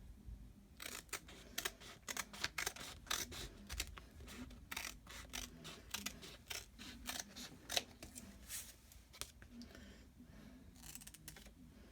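Scissors cutting through a plastic-backed chalk transfer sheet: a run of quick, irregular snips, pausing briefly near the end before snipping again.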